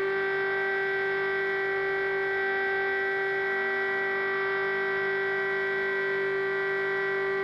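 Air-defence siren sounding the all-clear signal: one long steady tone, held without a break, which signals that the air-raid danger is over.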